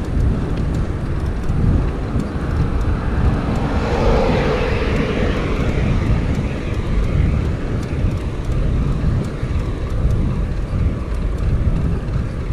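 Steady low rumble of wind on the microphone of a camera on a moving bicycle. A car passes the bike about four seconds in, its tyre and engine noise rising and fading over about two seconds.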